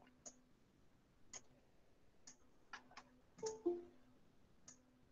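Faint computer mouse clicks, about seven of them at uneven intervals, with a slightly louder short sound a little after three and a half seconds in.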